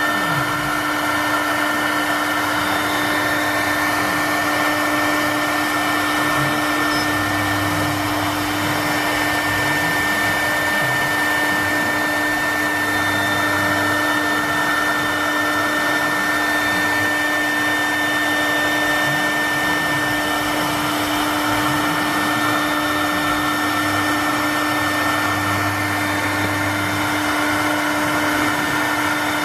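W1325VD3 CNC router's spindle motors running with a steady high whine, with lower motor sounds rising and falling in pitch every few seconds as the machine moves.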